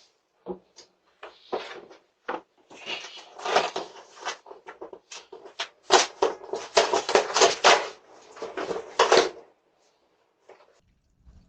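Clattering and rustling handling noise: many short clicks and scrapes in quick succession, sparse at first, dense through the middle, dying away to a few clicks near the end.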